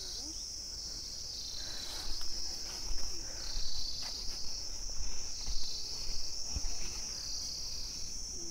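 Insects chirring in a steady high-pitched drone that swells and eases in a slow pulse. Low bumps and rustles come and go from about two to seven seconds in.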